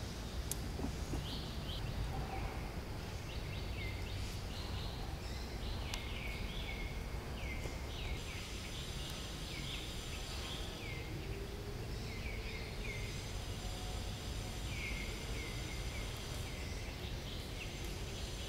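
Outdoor ambience: repeated short chirps, each sliding downward, coming in quick runs of two to four, over a steady low rumble, with a faint high buzz at times.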